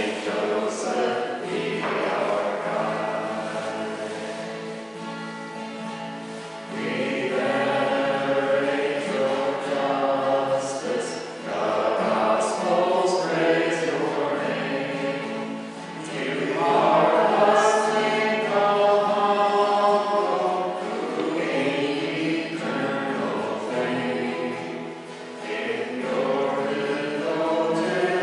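Choir singing a hymn in long phrases that swell and fade every few seconds.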